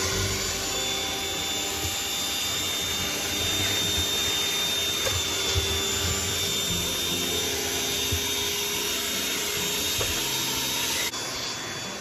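Shop-Vac ash vacuum running with a steady whine, its hose nozzle sucking cold ashes out of a wood stove's firebox. The sound drops off abruptly near the end.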